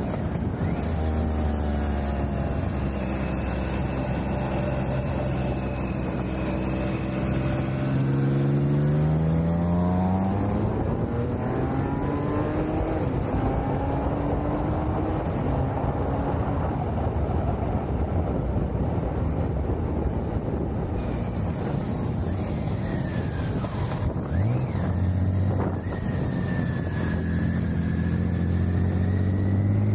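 Touring motorcycle engine running on the road under wind rush. Its pitch climbs as it accelerates about a third of the way in, holds, dips briefly about four-fifths of the way in, then climbs again near the end.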